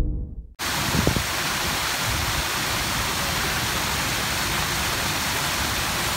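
Rows of fountain jets splashing into a pool, a steady rushing hiss that cuts in suddenly about half a second in, just after the last of the music dies away.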